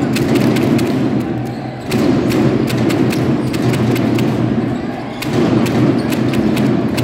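Basketball game sound: a run of sharp thumps and knocks, with the ball bouncing on the court, over a dense arena din that dips briefly twice.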